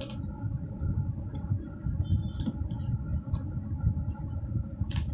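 Playing cards being drawn from a deck and handled on a wooden table: a few short, light clicks and slides of card stock, over a steady low rumble in the background.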